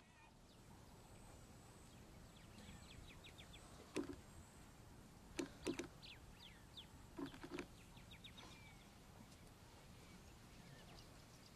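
Faint bush ambience with scattered short bird chirps. A single sharp knock comes about four seconds in, followed by two quick pairs of knocks, which are the loudest sounds.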